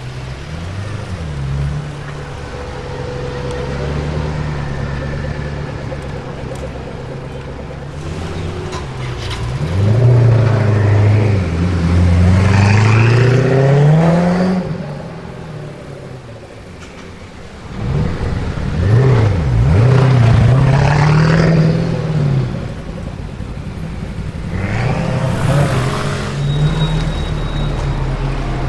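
Koenigsegg Agera R's twin-turbocharged V8 running at low revs, then accelerating hard three times, the engine note climbing steeply in pitch with each pull.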